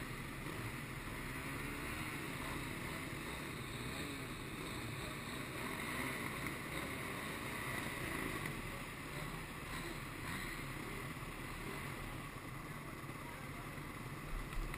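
Several dirt bike engines running at idle in a group, with wind noise on the microphone.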